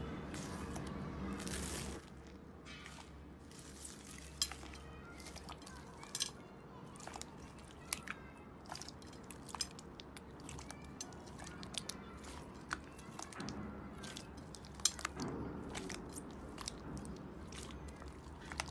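Slime being squeezed and poked by hand, giving many small, irregular crackles and clicking pops. A denser, steadier rustle in the first two seconds gives way to scattered crisp clicks.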